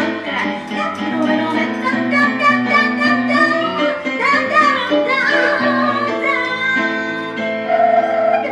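A woman singing live into a handheld microphone over instrumental accompaniment; her voice slides up and down in pitch over steady held notes.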